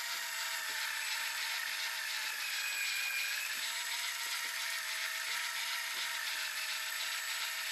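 Fishing reel winding in line under load: a steady gear whir with a fine ratcheting texture, its pitch sagging slightly about three seconds in, as a hooked cod is reeled up from about 50 m down.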